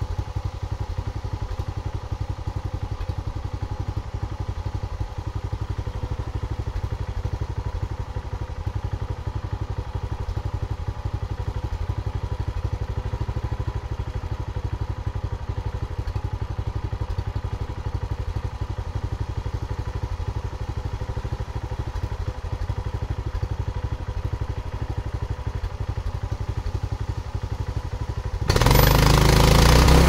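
Viel portable bandsaw mill's engine idling with a fast, even putter. Near the end it revs up sharply and runs much louder.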